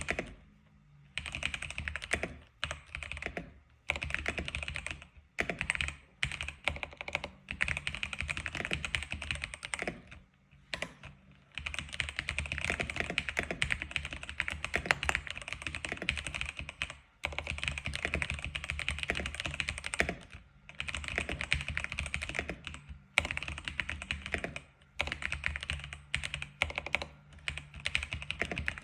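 Typing on an X87 keyboard: fast runs of keystroke clicks, broken now and then by short pauses of about a second.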